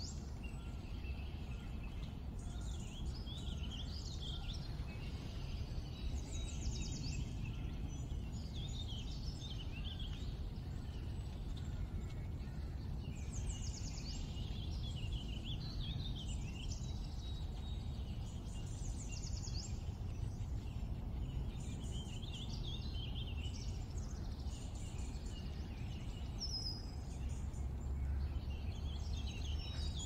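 Several wild songbirds chirping and singing in short, overlapping phrases throughout, over a steady low rumble.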